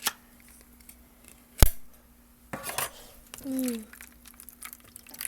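An opened tin can of fruit being handled over plastic containers: sharp metallic clicks and knocks, the loudest a hard knock about a second and a half in, with a short scrape just after the middle and light ticks near the end.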